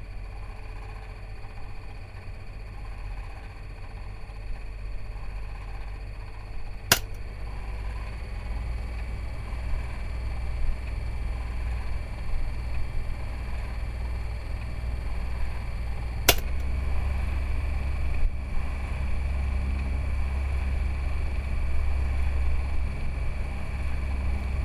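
Table fan running with a steady low hum and whoosh of air. Two sharp clicks come about seven and sixteen seconds in, and after the second one the fan runs with a stronger, louder low hum.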